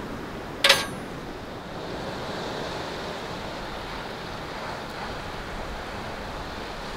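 Steady rush of sea surf and wind, with a single sharp metallic clink of cookware just under a second in.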